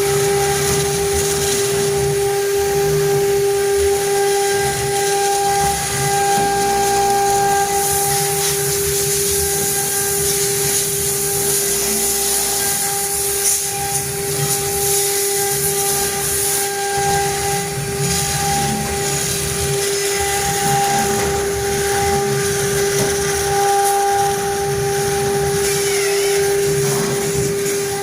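Stone CNC router spindle running steadily with a high whine while it engraves stone. Gritty cutting hiss rides over the whine and grows louder for several seconds in the middle.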